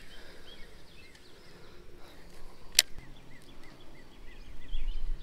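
Quiet outdoor background with a run of faint, short high chirps and one sharp click a little past the middle.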